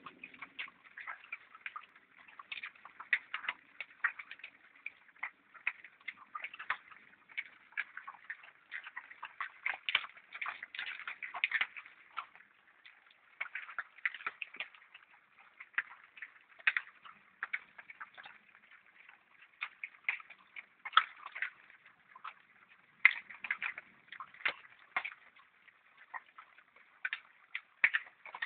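Wild boar eating acorns: many irregular, overlapping cracks and crunches of acorn shells between their teeth, with wet smacking.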